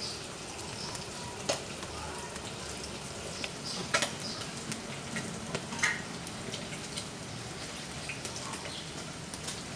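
Firewood burning in a wood-burning cookstove, crackling: irregular sharp pops and snaps over a steady soft hiss, the loudest pops about 1.5, 4 and 6 seconds in.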